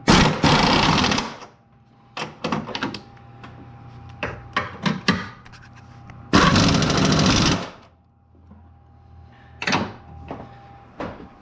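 An impact wrench runs in two loud bursts of about a second each, the first at the start and the second about six seconds in, as the 15 mm engine mount bolts are driven in. Scattered clicks and knocks of tool handling come between the bursts.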